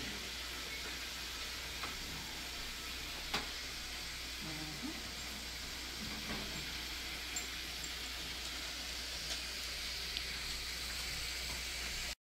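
Chicken wings frying in hot oil: a steady sizzle with a few sharp little pops scattered through it.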